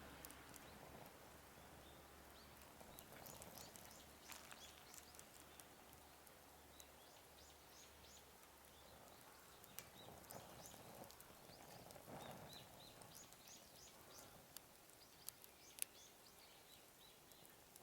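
Wood campfire crackling faintly, with scattered irregular small pops and one sharper pop near the end.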